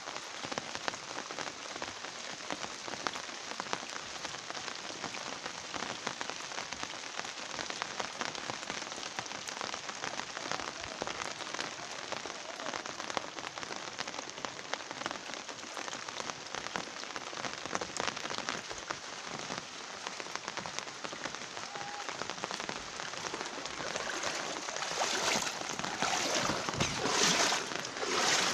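Steady rain falling on surfaces, a dense pattering of drops. It swells into louder surges in the last few seconds.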